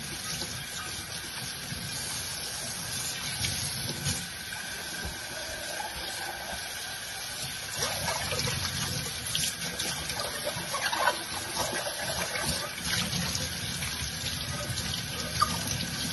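Kitchen faucet running into the sink while a glass bowl is rinsed by hand under the stream, with occasional light knocks of the bowl and dishes.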